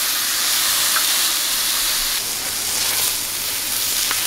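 Top sirloin steak sizzling steadily as it sears its second side on a hot Skottle steel griddle.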